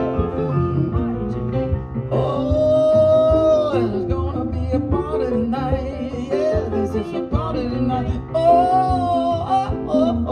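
Live band music with guitar, and a lead line holding two long, wavering notes, one about two seconds in and another near the end.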